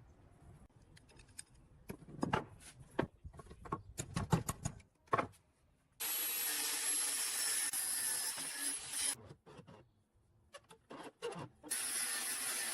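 Workshop tool sounds: scattered knocks and clinks, then a stretch of steady rubbing, rasping noise lasting about three seconds that stops abruptly, a few more clinks, and the rubbing noise starting again near the end.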